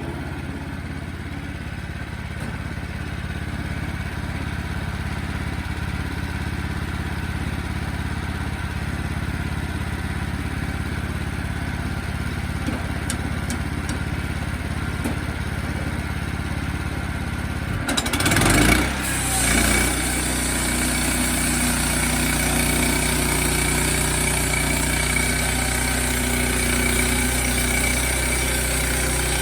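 Sawmill engine running steadily; about eighteen seconds in it surges briefly, then runs on louder with a high whine.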